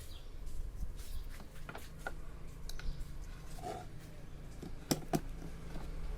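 Light handling noises: scattered small clicks and taps, with two sharper clicks close together about five seconds in, over a steady low hum.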